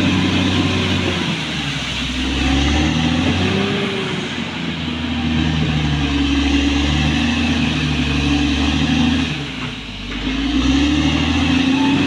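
Caterpillar D6R XL bulldozer's diesel engine working under load, its pitch rising and falling with the throttle. It drops back briefly about ten seconds in, then picks up again.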